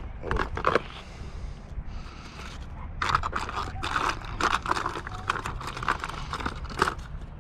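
Hands rummaging in a plastic fishing tackle box and handling a small packet of tackle: a couple of brief scrapes near the start, then a run of quick scraping and rustling strokes from about three seconds in.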